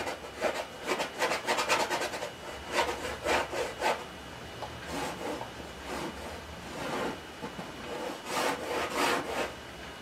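Paintbrush scrubbing paint onto a stretched canvas on an easel: a quick run of short rubbing strokes over the first four seconds, then slower, spaced strokes with pauses between them.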